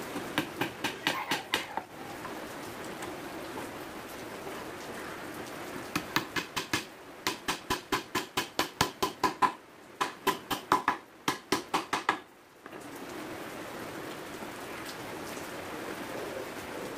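Quick hammer blows driving nails into a particleboard stand: a short run of about eight blows at the start, then a longer run of blows, about three to four a second, from about six to twelve seconds in with a brief break midway. A steady hiss runs underneath.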